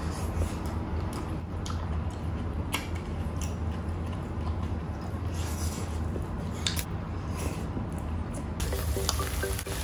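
Close-up mukbang eating sounds: wet chewing and squishing of rice and saucy Bicol Express eaten by hand, with small clicks of spoons and fingers against plates over a low steady hum. Music starts near the end.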